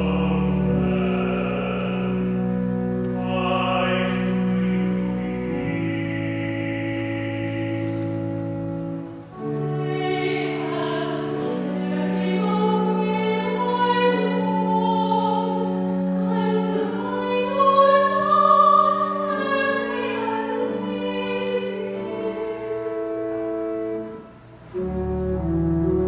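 Organ with singing voices performing a slow sacred hymn or anthem, long held chords under the vocal line; the music pauses briefly about nine seconds in and again near the end.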